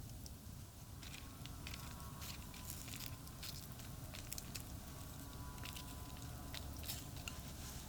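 Campfire crackling with scattered sharp pops and snaps, over a steady low rumble of traffic on a nearby expressway.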